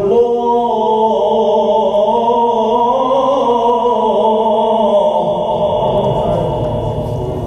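A reciter chanting the Quran in melodic recitation, holding one long, slowly wavering note that ends about five seconds in, leaving a low, noisy background.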